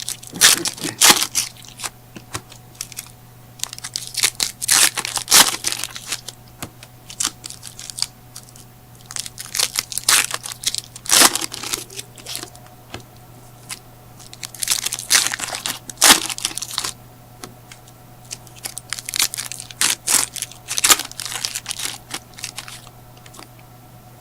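Foil trading card pack wrappers being torn open and crinkled, with cards rustling as they are handled, in bursts every few seconds.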